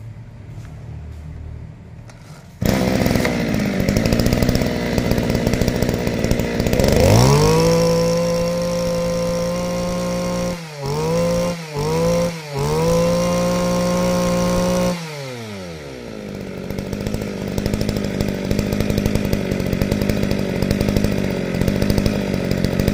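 Kioritz two-stroke brush cutter engine catching about three seconds in and idling. It is then revved up to high speed, let off and back on three times in quick succession, held high, and dropped back to a steady idle.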